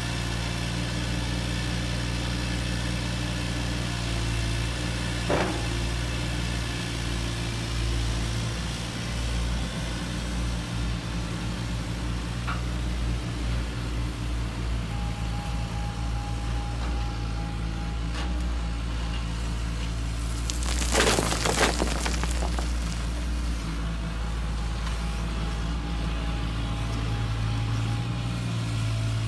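Huina 1580 radio-controlled metal excavator working gravel: a steady low hum with a thin motor whine that comes and goes as the arm moves. A short rattle of stones comes about two-thirds of the way through.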